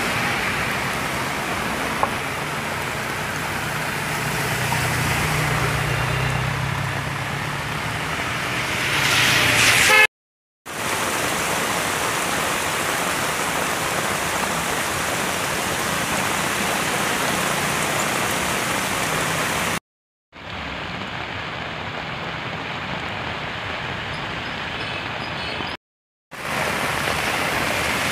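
Heavy rain and running floodwater make a steady rushing noise. In the first part a car's engine grows louder and its tyres spray through the water as it passes, peaking about nine seconds in. The sound breaks off three times for a moment at the clip cuts.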